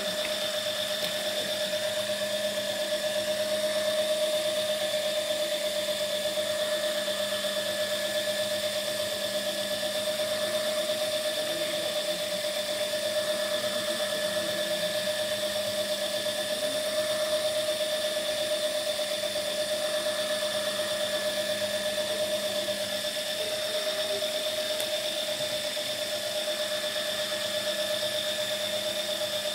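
Lego Technic electric motor and plastic gears turning an egg-painting turntable at a steady speed, giving a constant mechanical whine.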